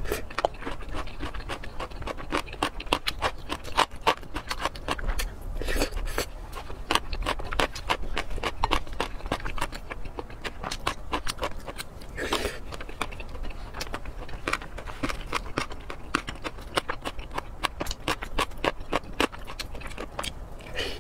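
Close-miked wet chewing and lip smacking of a soft, saucy mince-and-potato dish, a dense run of small sharp clicks, with a wooden spoon now and then scraping a glass bowl.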